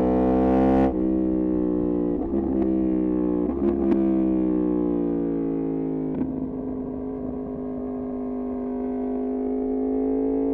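Yamaha MT-10's crossplane inline-four through an Austin Racing exhaust, under way. The note climbs and drops sharply at shifts about one and two seconds in, falls away steadily from about four seconds as the bike slows, then climbs slowly again near the end.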